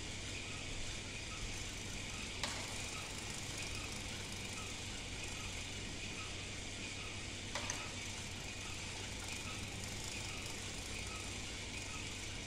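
Toy-brick machine's mechanism ticking softly and evenly, about two ticks a second, over a steady hiss. Two sharp clicks stand out, one about two and a half seconds in and one near eight seconds.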